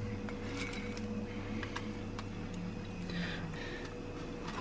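Quiet kitchen room tone: a steady low electrical hum, with a few faint light ticks and soft rustles as a crepe is handled and folded on a plate.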